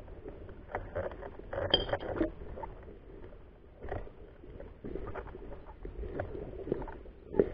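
Rustling, crackling and knocking handling noise as the rifle is carried through brush, picked up close by a camera mounted on the rifle; irregular small clicks and scrapes, loudest about two seconds in.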